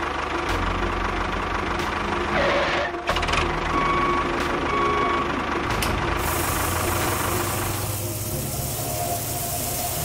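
Tractor engine running steadily with a low pulsing throb, with two short beeps about four and five seconds in. From about six seconds in a steady hiss joins as sand pours off the tipping trailer.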